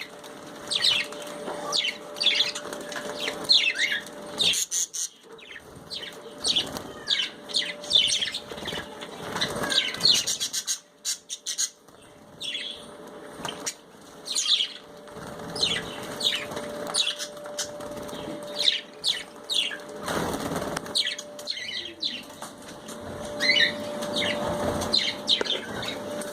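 Budgerigars chirping in quick, rapid strings while fluttering their wings as they bathe, with a faint steady hum underneath.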